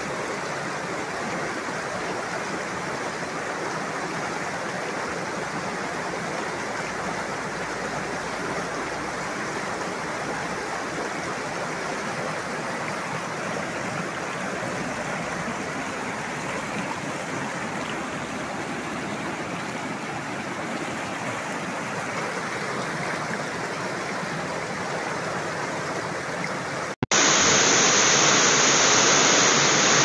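River rapids rushing over and around boulders: a steady rush of white water. Near the end it cuts abruptly to a louder rush of water pouring down a small cascade into a rock pool.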